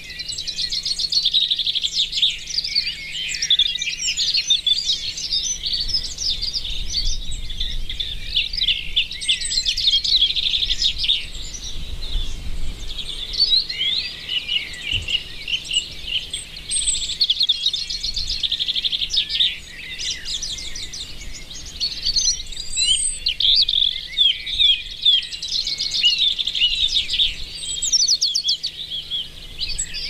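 Small songbirds chirping and twittering, many quick calls overlapping with no break.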